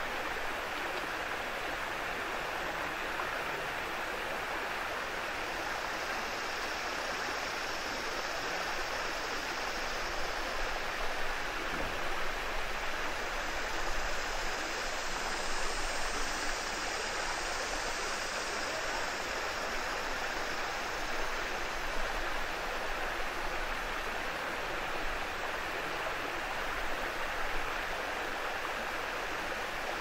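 Small waterfall: stream water rushing and splashing steadily over a low rock ledge.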